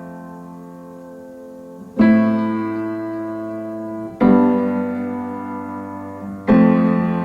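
Background piano music: slow, sustained chords struck about every two seconds, each left to ring out and fade.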